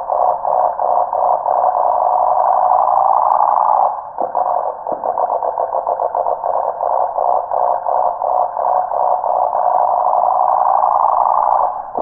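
Cicada singing: a loud, continuous buzz that dips briefly about four seconds in, then comes back with a fluttering pulse and swells again.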